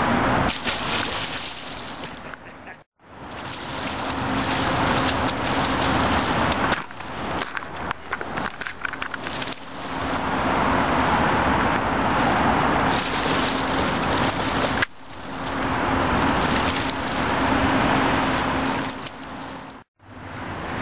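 Steady rush of city traffic noise with a faint low hum, broken by a dense run of quick knocks and crackles in the middle, and cutting out abruptly twice.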